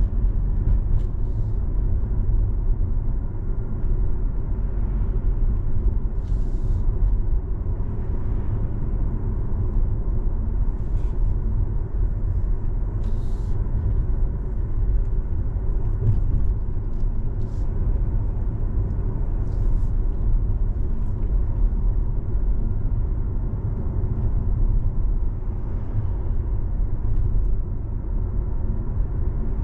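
Steady low rumble of a car being driven, with road and engine noise, and a few short, faint ticks now and then.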